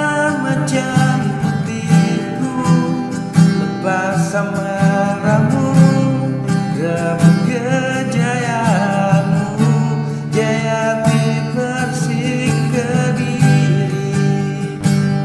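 A football supporters' song sung in Indonesian over strummed acoustic guitar, with a steady beat.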